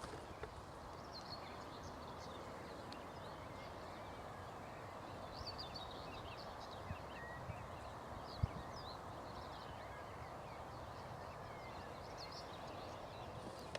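Faint songbirds singing: scattered short high chirps and trills over a steady background hiss, with a couple of soft knocks about halfway through.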